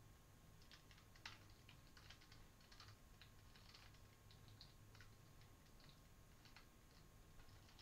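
Faint typing on a computer keyboard: irregular, quick keystrokes over a low steady hum.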